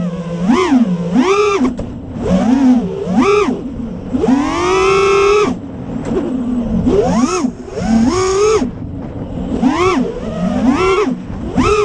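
Brushless motors of a 5-inch FPV quadcopter (T-Motor F40 Pro IV 2400KV on HQ Ethix P3 props) whining up and down in pitch with repeated throttle punches. Near the middle the pitch is held high for about a second and a half.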